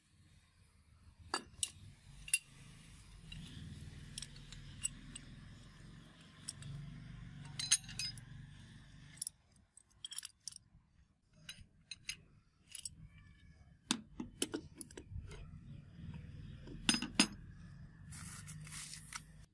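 Scattered metallic clicks and clinks as a restored pipe cutter, with its brass T-handle and threaded steel spindle, is handled and assembled, with a brief scrape near the end, over a low steady background hum.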